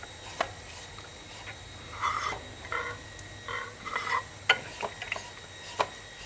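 Hand-cranked vegetable slicer being turned, its blade cutting a carrot into thin slices. Scattered sharp clicks, with a few short scraping cuts about two to four seconds in.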